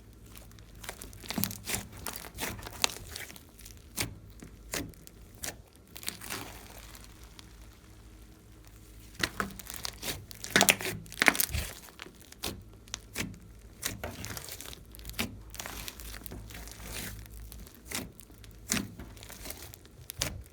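Slime being squeezed and poked by hand, giving irregular crackling clicks and squishes that are busiest about halfway through.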